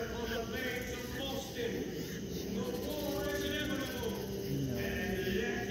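Choral music with men's voices singing long held notes.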